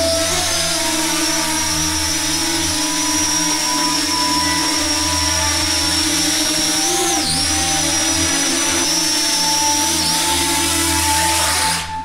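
Parrot Anafi quadcopter's motors and propellers running with a steady high-pitched whine over a lower hum. The pitch dips briefly about seven seconds in, then the sound cuts off just before the end.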